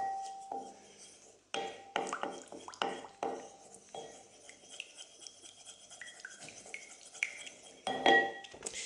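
Wooden spoon stirring a thick mustard vinaigrette in a ceramic bowl: irregular scraping strokes against the bowl, louder near the end.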